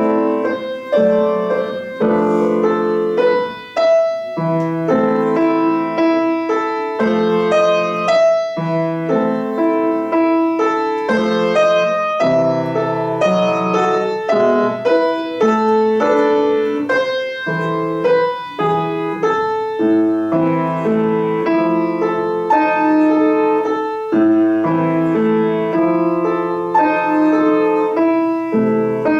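Solo piano playing a classical piece: a continuous flow of melody over chords, without pauses.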